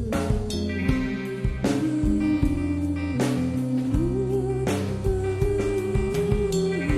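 A rock song with sustained electric guitar and bass notes over a drum kit, with a heavy cymbal-and-drum hit about every second and a half; no vocals are heard.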